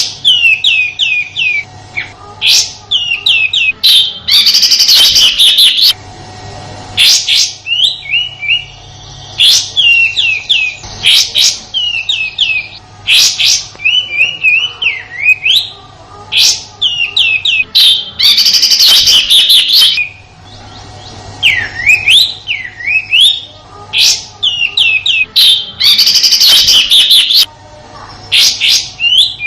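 Kapas tembak calling loudly: runs of short, sharp whistled notes that slide in pitch, broken three times by a dense, coarse rapid-fire burst, the 'rough shooting' call (tembakan kasar). A faint steady hum lies underneath.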